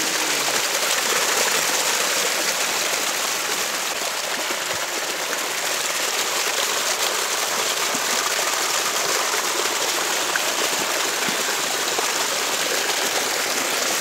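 Small waterfall cascading over mossy rocks, a steady rush of falling and splashing water close to the microphone.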